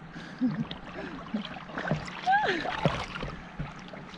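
River water sloshing and gurgling around a person wading chest-deep beside an inflatable paddle board, with a couple of brief wordless voice sounds.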